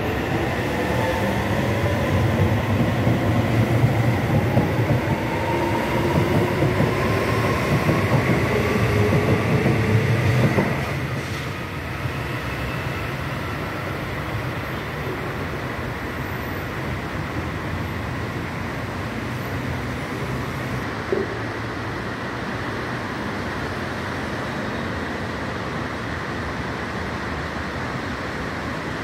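São Paulo Metro electric train pulling away and accelerating: a low rumble with its traction motors' whine rising in pitch, ending abruptly about ten seconds in. A steady background hum follows, with a single brief click about 21 seconds in.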